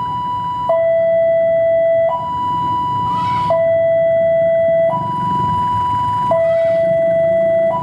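A two-tone electronic warning alarm alternates steadily between a low and a high note, each held about a second and a half. Under it runs the low rumble of a KAI diesel-electric locomotive's engine.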